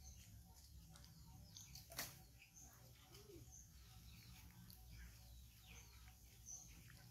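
Near silence with faint high chirps and short squeaks from small animals scattered throughout, and a single sharp click about two seconds in.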